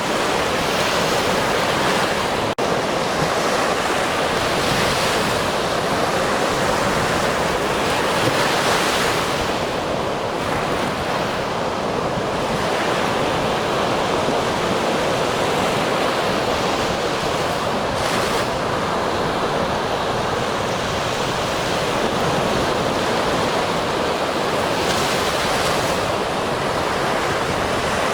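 Ocean surf: a continuous wash of waves breaking and running up the shore, its hiss swelling every few seconds as each wave comes in. There is a momentary dropout in the sound about two and a half seconds in.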